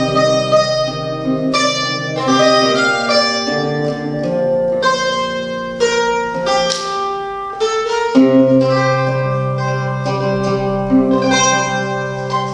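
Live instrumental music: a large round-backed lute and a mandolin plucking a medieval-style folk tune in quick notes over a low held note.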